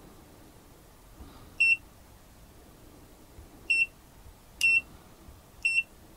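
GVDA GD166B clamp meter's built-in buzzer giving a short, high beep four times at uneven intervals. Each beep confirms a press of its function button as the meter steps through its measurement modes.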